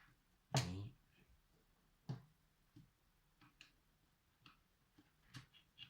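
Faint, scattered clicks and taps of a keyboard's plastic parts being handled and worked loose during disassembly, with a short vocal hesitation sound about half a second in.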